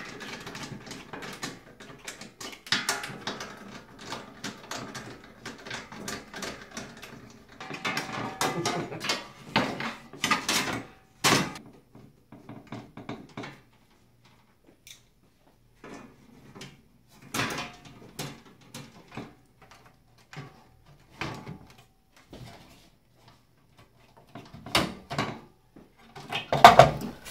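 Hands working on the sheet-metal chassis of an Allen-Bradley PanelView 1200 operator terminal: scattered clicks, knocks, scrapes and rustles as metal parts, a ribbon cable and a circuit board are fitted, with a quieter pause about halfway through.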